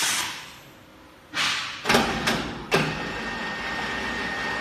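Air-operated block clamp working on concrete hollow blocks. An air hiss fades away, and a short hiss comes about a second and a half in. Then three sharp clanks, the last a heavier thud, as the clamp's jaws close on the blocks, followed by a thin steady whistle.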